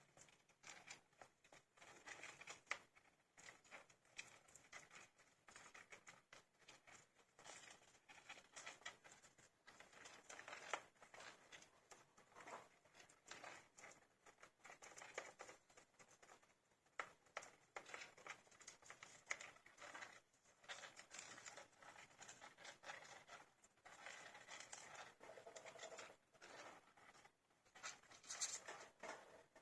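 Faint, irregular scratching and rustling of 15-day-old hamster pups moving about in their bedding.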